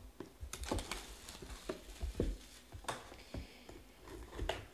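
Shrink-wrapped box of trading cards being handled and its plastic wrap slit with a knife: irregular taps and knocks with short crinkling of the plastic.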